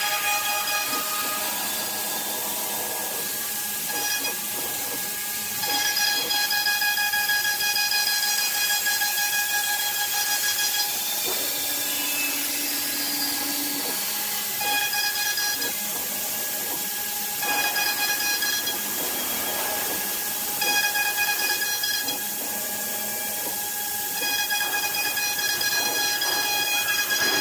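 CNC wood router running, a high-pitched spindle whine over a steady hissing cutting noise; the whine drops out and comes back several times as the cut goes on.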